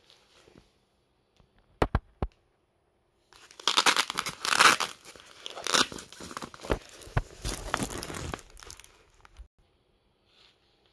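A plastic mailer envelope being opened and its cellophane-wrapped contents pulled out: two sharp clicks, then about five seconds of crinkling and tearing plastic that dies away near the end.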